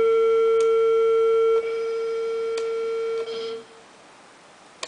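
A single sustained note played through the AmpliTube amp simulator holds steady, then drops in level and changes tone in steps as the foot controller switches presets, before dying away a little over three seconds in. A short click comes just before the end.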